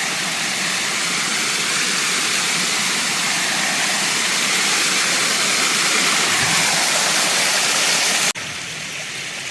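Creek water rushing over rocks, a loud steady hiss. About eight seconds in it cuts abruptly to a quieter flow of water.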